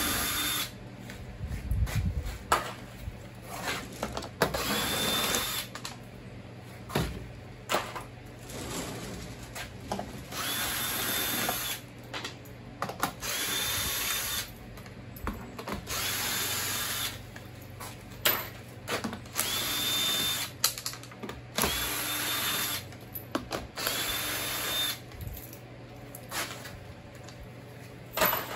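Cordless drill run in short bursts of about a second, about eight times. Each whine climbs quickly to a steady pitch and then stops as the drill backs out the screws holding the fiberglass mold's sections together. Light clicks and knocks come between the bursts.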